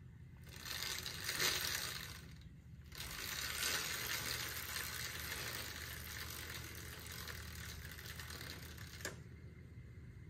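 BMX drivetrain spun by hand on a stand: the chain running over the chainring and rear cog with a soft hissing whir, in two spins, the second one fading out slowly. There is no freewheel clicking, because the Stealth rear hub's 360-engagement freewheel is silent.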